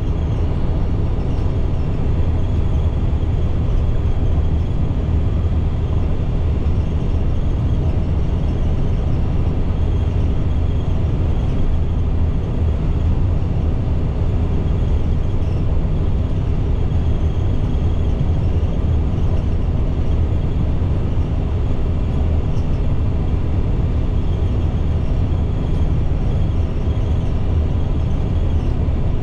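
Steady engine and road noise of a 2010 IC CE300 school bus under way, its International MaxxForce DT inline-six diesel running at an even pace.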